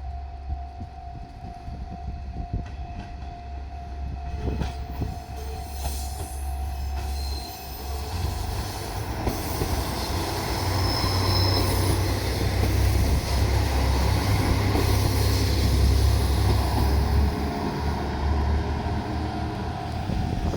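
Two-car JR Shikoku Type 1000 diesel railcar set moving through the station, its low diesel rumble growing louder about halfway through, with clicks from the rails and brief high wheel squeal.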